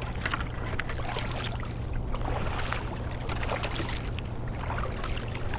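Double-bladed kayak paddle strokes: the blades dip in on alternate sides, with irregular splashes and drips of water off the blades over a steady low rumble.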